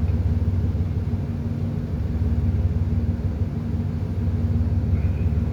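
A ship's engine running steadily: a constant low drone with a steady hum above it.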